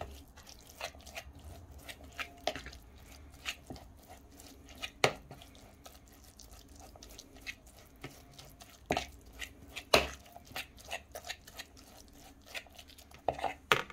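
A fork mashing canned tuna in oil in a bowl: irregular soft squishing and clicks of the tines against the bowl, with a few sharper taps standing out here and there.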